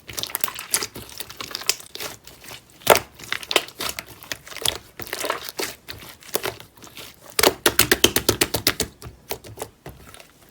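Slime being played with by hand: a run of sticky crackling clicks and pops, densest about seven and a half seconds in.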